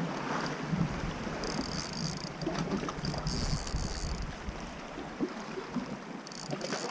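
Spinning reel being wound in three short spells, a high whirr coming and going, while a hooked fish is played on a bent rod. Under it, sea water laps against the rocks and wind buffets the microphone.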